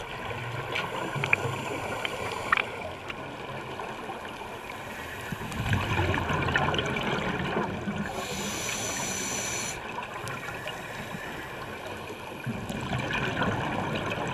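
Underwater sound of scuba diving: a steady hiss and low rumble, with a burst of regulator exhaust bubbles about eight seconds in lasting nearly two seconds. Two sharp clicks come in the first few seconds.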